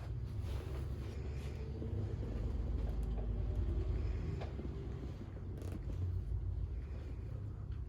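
Rustling and soft handling sounds, with a few faint clicks, over a steady low rumble, as a patient is positioned on her side on a chiropractic table for a lumbar side-posture adjustment.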